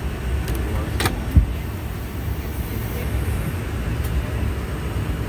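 Steady low rumble of a Boeing 717-200's passenger cabin, with a few sharp clicks and one thump from the overhead passenger service unit being handled. The last click, about four seconds in, comes as the reading-light button is pressed and the light switches on.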